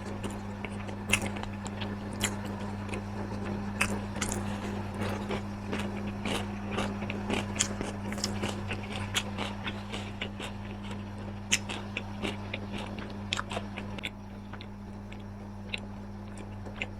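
Close-miked chewing and crunching of crisp food, with many sharp crackles that thin out near the end, over a steady low electrical hum.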